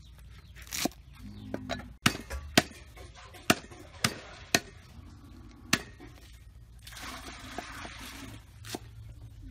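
Cleaver chopping water convolvulus (water spinach) stems on a wooden chopping board: about ten sharp chops at uneven intervals. Near the end the chopping pauses for a softer rustle of the stems being handled.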